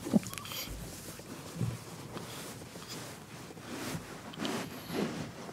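Cloth rustling as a newborn baby is swaddled in a blanket, with a brief whimper from the baby right at the start.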